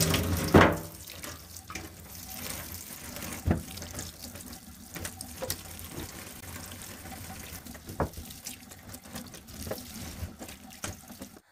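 Tap water running into a stainless steel sink over a bunch of mustard greens as they are rinsed by hand. A few sharp knocks sound, the loudest about half a second in.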